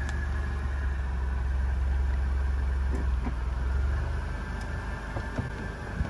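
Car engine of a Mercedes-Benz C-Class sedan running at low speed as the car pulls up and stops. Its low rumble drops away about four seconds in.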